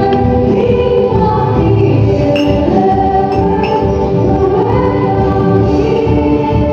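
A choir singing a gospel song, several voices holding long notes together in harmony.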